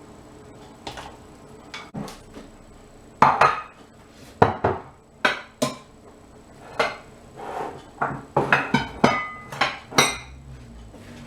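Metal cooking pot and utensils clanking: a string of sharp knocks and clinks, sparse at first and coming thick and fast from about three seconds in, a few ringing briefly, as pieces of pork are loaded into the pot.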